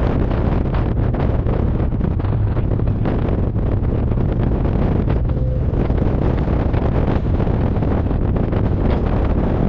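Heavy wind noise on the microphone of a moving motor trike, with the trike's engine running underneath.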